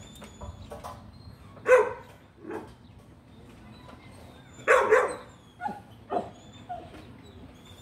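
A dog barking from a kennel: one sharp bark about two seconds in, a longer bark around five seconds, then a few shorter, quieter barks.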